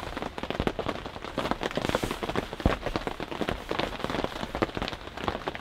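Rain falling on a heavy-duty WW2 British Army officer's canvas tent, heard from inside: a dense, steady patter of drops. The thick canvas keeps it from sounding heavy.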